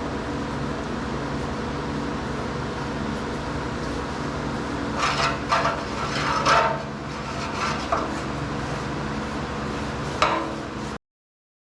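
Steady mechanical hum with a few short scrapes and rubs around the middle, and a couple of single knocks later, ending in a sudden cut to silence.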